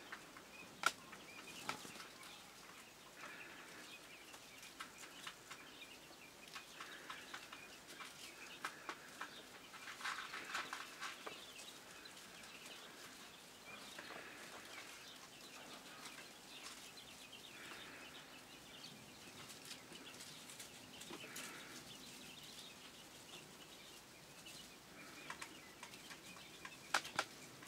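Three-day-old quail chicks peeping softly, in scattered short chirps that get busier about ten seconds in. Small sharp clicks and rustles come from the wood-shaving bedding as they move and peck.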